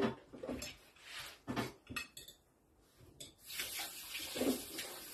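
Knife and fork clinking and scraping on a china plate while cutting food, as a few separate clicks. A steady rushing noise sets in about three and a half seconds in.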